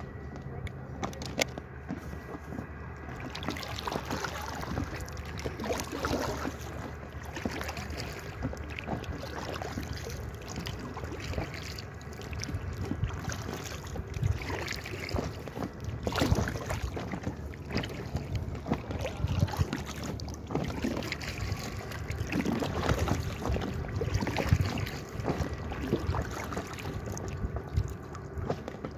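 Water lapping and splashing against an inflatable kayak's hull as it moves across choppy open water, with irregular louder splashes.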